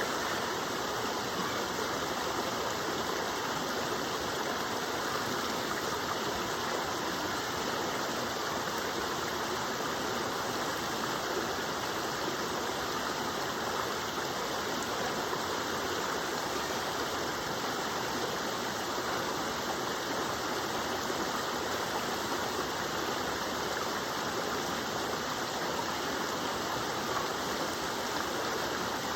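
Waterfall, water rushing in a steady, unbroken hiss with no change throughout.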